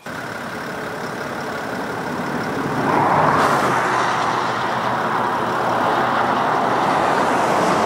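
Highway traffic noise: a steady rush of passing vehicles on the road, building over the first few seconds and loudest from about three seconds in.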